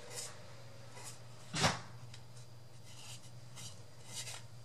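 Hands handling a small wooden box, with faint rubbing and rustling and one sharp knock about a second and a half in, over a steady low hum.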